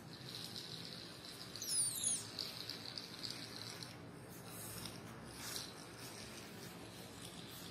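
Small DC gear motors of a light-following robot car whining at a high pitch as it drives and turns across a tile floor, with a brief high falling squeak about two seconds in and a short scuff later.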